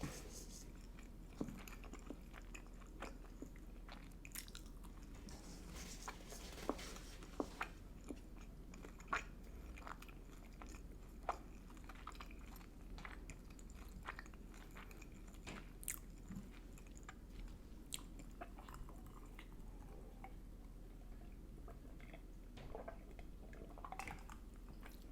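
A person chewing and biting food close to the microphone, with scattered short clicks and mouth sounds.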